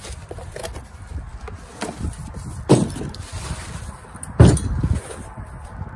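Bubble wrap and cardboard rustling as a bicycle-engine kit's cast-metal two-stroke engine is lifted out of its box. There are two heavy thuds, the second and louder one about four and a half seconds in, as the engine is set down on the table. Wind rumbles on the microphone.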